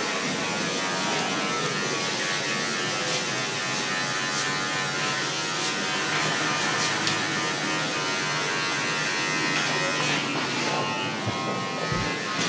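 Electric hair clipper buzzing steadily as it runs.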